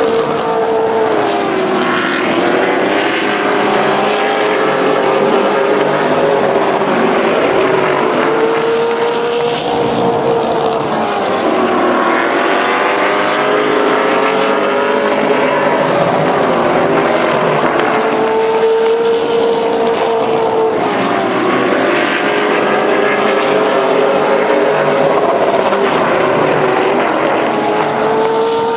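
Pro Late Model race cars' V8 engines running hard around a short oval, the engine note dropping several times as the cars slow for the turns and climbing again down the straights.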